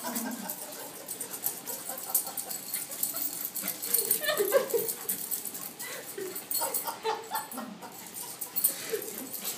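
Puppies play-fighting, giving a few short whines and yips, with scattered sharp clicks.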